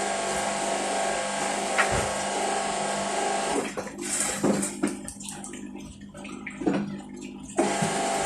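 Washing machine spinning in its spin cycle: a steady whirring hum with water rushing, the noise the owner complains it makes when spinning. For about four seconds in the middle the hum drops away and a few separate knocks and clunks are heard before it returns.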